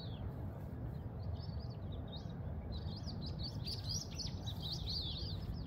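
Small birds chirping: a quick run of short high chirps, thickest in the second half, over a steady low background rumble.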